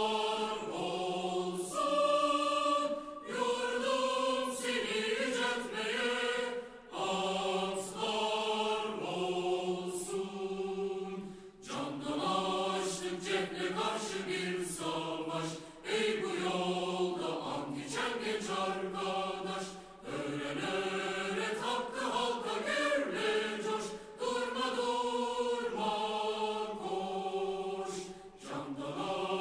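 Choir singing a slow song in long held phrases, with brief pauses between phrases.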